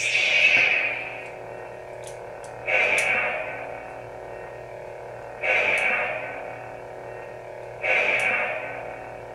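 Plecter Labs Prizm V5 lightsaber soundboard playing through the hilt's speaker: a steady pitched hum, with a loud swelling effect sound at the start and again at about 3, 5½ and 8 seconds, each fading away over about a second.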